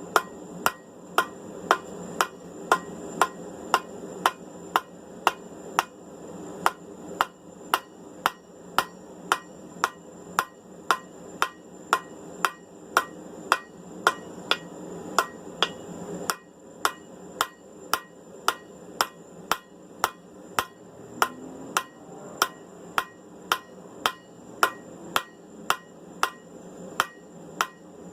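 Hand hammer striking hot steel bar stock on an anvil in a steady rhythm, about two blows a second, while the tong reins are trued up and cleaned up. A steady hum runs underneath and drops lower about sixteen seconds in.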